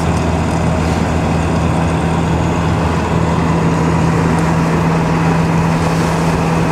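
GAZelle van's engine and road noise heard from inside the cab while driving at a steady speed: an even, low drone that holds one pitch throughout.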